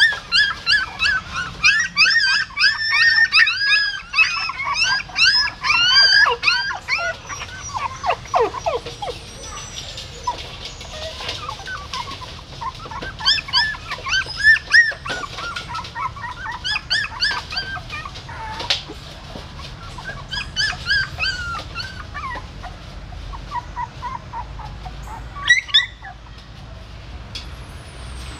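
Young puppies whimpering and squealing: many short, high-pitched squeaks, thick for the first several seconds, then coming in scattered bursts.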